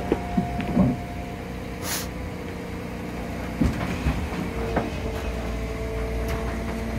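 Liebherr loader running, a steady low rumble with a whining tone, as its fork attachment moves in beside a concrete pipe; sharp metal clanks and knocks come in the first second and again about three and a half to five seconds in, with a short hiss about two seconds in.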